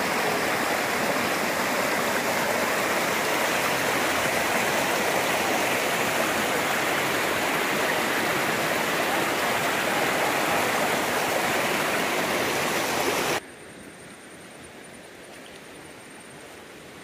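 Fast-flowing, flood-swollen river water rushing through a stone and bamboo weir as a loud, steady roar of water. About thirteen seconds in it cuts off abruptly to a much quieter hiss, with a faint, high, steady whine.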